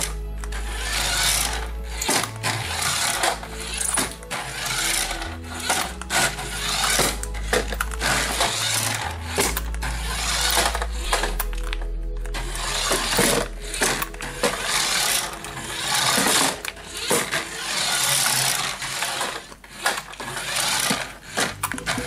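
Small electric motor and plastic gears of a toy remote-control car whirring as it drives, over music.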